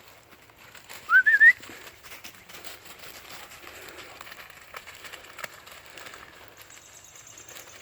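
A short, loud, rising and wavering whistle about a second in, a person whistling to call dogs. Faint scattered ticks and rustling follow.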